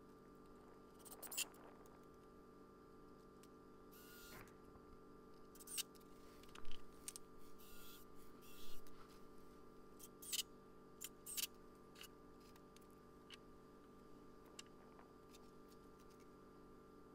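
Faint scattered clicks and knocks of pine 2x4 boards and a cordless drill being handled while a wooden stand is assembled, busiest in the middle, over a steady low hum.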